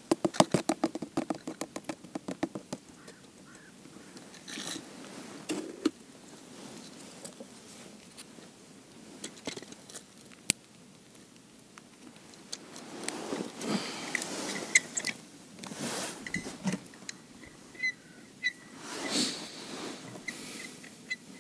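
Handling noises of ice-fishing gear: a cone-shaped bait feeder dipped into a bucket of groundbait and filled. There is a quick run of clicks over the first few seconds, then scattered scrapes and rustles.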